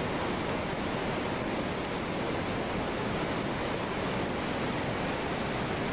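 Tsunami water surging into a harbour: a steady, unbroken rush of churning water.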